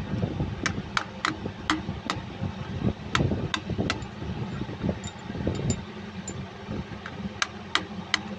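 Hammer striking a steel punch around the rim of a new front crankshaft oil seal, driving it into the front cover of a Cummins KTA50 16-cylinder engine: sharp metallic taps in quick runs, with a pause of a couple of seconds after the middle. A steady low hum runs underneath.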